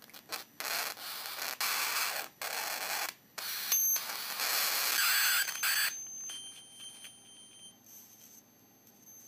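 High-voltage arc from a flyback-transformer supply of up to 20 kV, fed without its capacitor, sizzling in several loud hissing bursts that break off and restart as it is drawn to a xenon flash tube. After about six seconds it drops to a quieter hiss with a thin high whine.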